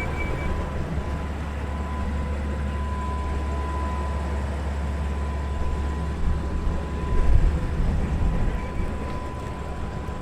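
Car engine idling with a steady low exhaust note, swelling briefly louder about seven seconds in.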